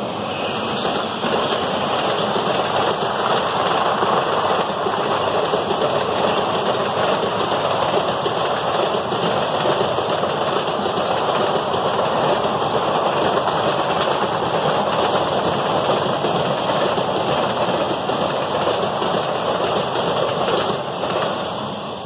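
Express train's passenger coaches running past at speed: a loud, steady rush of wheels on rail with a rapid clatter, fading away near the end as the last coach clears.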